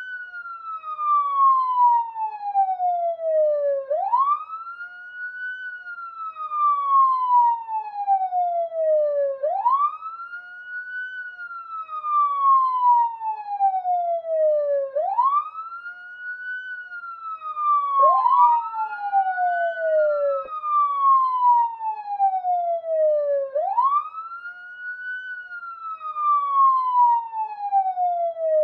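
Police siren on a long wail, each cycle sweeping up quickly and then sliding slowly back down, repeating about every five and a half seconds. About two-thirds of the way through, a new rise starts before the previous fall has finished, so two sweeps briefly overlap.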